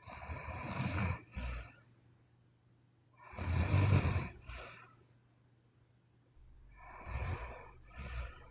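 A sleeping woman snoring: three snores about three and a half seconds apart, each a longer noisy breath followed by a short puff. The middle snore is the loudest.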